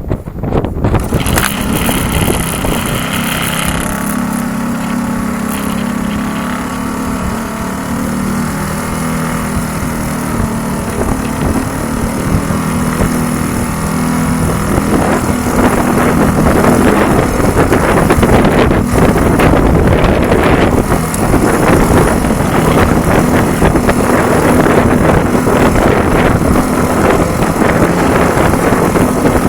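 Strong wind buffeting the microphone on open water, over a steady low hum; the buffeting grows louder and rougher about halfway through.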